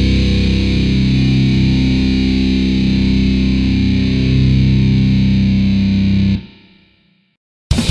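Black metal recording: a sustained, distorted electric guitar drone with effects and low held tones. About six and a half seconds in it dies away to a second of silence. Right at the end the next track bursts in with loud, fast distorted guitar.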